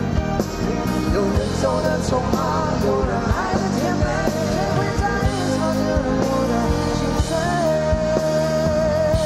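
Live band music with a male lead vocalist singing into a microphone, ending on a long held note near the end.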